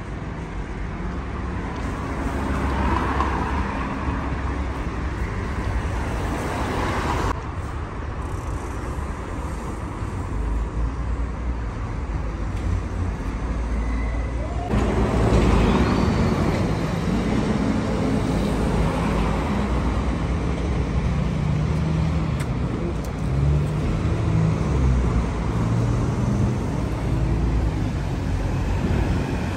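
Road traffic in a town street: cars passing and engines running in a continuous rumble. A heavier, lower engine hum sets in about halfway through and stays.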